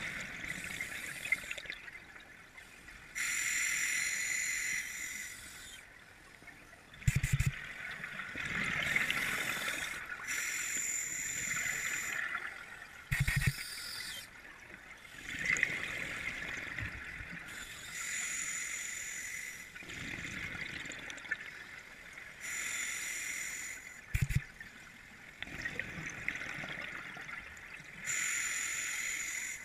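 Scuba diver breathing through a regulator underwater: a burst of bubbles and hiss every few seconds as each breath goes in and out, with three short dull knocks in between.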